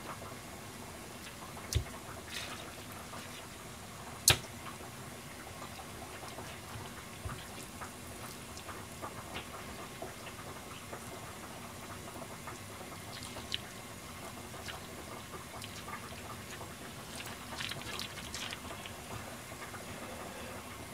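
Hands wrapping blanched cabbage leaves around a chopped chicken-breast filling on a plastic cutting board: soft, wet leaf handling with scattered small ticks and a flurry of light crinkling near the end, over a steady low hiss. Two sharp knocks stand out in the first few seconds, the second the loudest.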